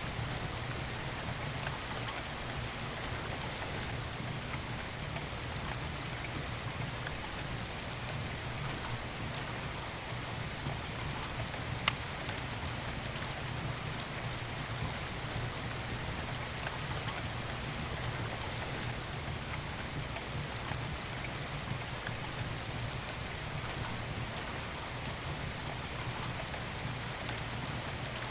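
Steady rain falling, a continuous even hiss, with a fireplace in the mix; a single sharp pop about twelve seconds in, like a log crackling in the fire.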